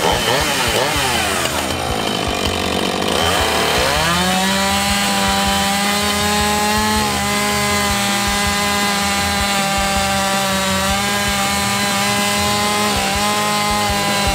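Husqvarna two-stroke chainsaw cutting through a cypress slab: the engine's pitch rises and falls for the first few seconds, then holds a steady high whine under load from about four seconds in.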